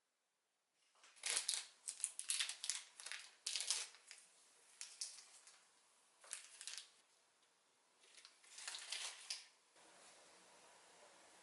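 Crinkling and rustling of something being handled, in irregular bursts with short pauses, busiest from about a second in until about four seconds, then again near the end.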